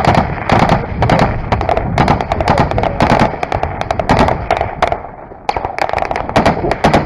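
Close, rapid small-arms gunfire: many sharp irregular shots, several a second, with a short lull a little past the middle.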